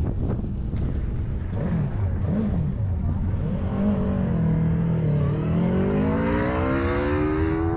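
Sport motorcycle engine revved twice, held at steady revs at the start line, then accelerating hard from a standing start, its note rising steadily in pitch.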